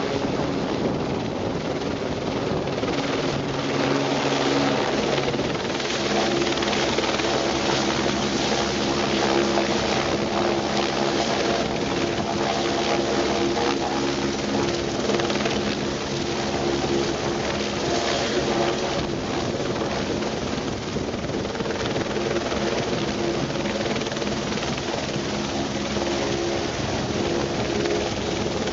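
Helicopter running steadily, its rotor and engine giving a constant noise with several steady tones underneath.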